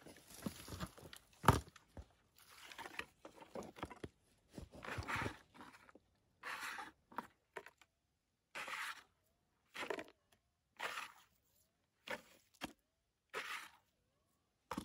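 Dry, stony soil being scraped and crunched in short strokes, with one sharp knock about a second and a half in; in the second half the scrapes come as separate strokes about a second apart.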